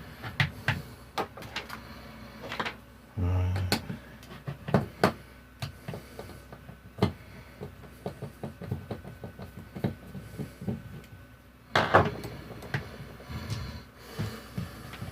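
Hair straightener's plastic casing being handled and taken apart: a run of small clicks and knocks, a short low buzz a little after three seconds, and one louder crack or scrape about twelve seconds in.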